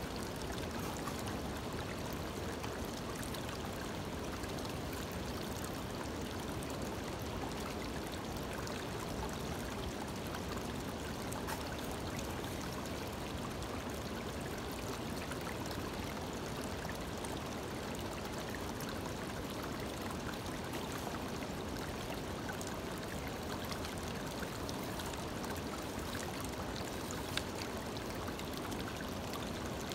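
Shallow creek water running steadily over stones and through a small gold-prospecting sluice box. One brief faint tap near the end.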